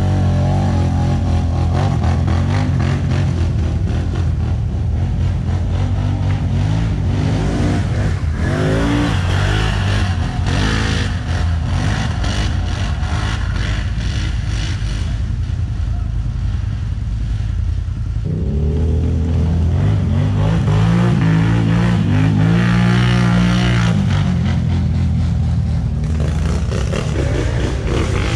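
ATV engine revving hard, its pitch rising and falling again and again as the throttle is worked on a steep climb. A rougher, clattering stretch comes in the middle.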